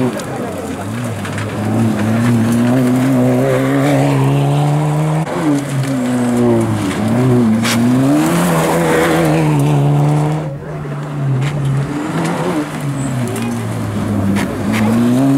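Suzuki Swift rally car's engine at full stage pace, its pitch climbing and dropping again and again with gear changes and lifts for the bends. It backs off sharply about ten seconds in for a tight corner, then revs up again as it pulls away.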